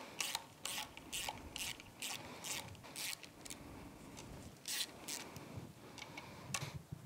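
Socket ratchet clicking in short bursts, roughly twice a second with a few pauses, as it backs out the bolts of an outboard lower unit's seal housing.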